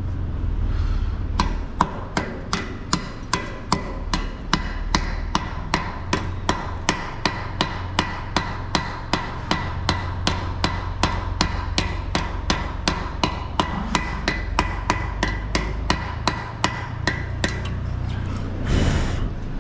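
A pick-headed hammer rapping steel, about three sharp metal taps a second with a ringing note, as slag is chipped off a fresh weld on a steel cattle head yoke bracket. A steady low hum runs underneath, and there is a short scraping burst near the end.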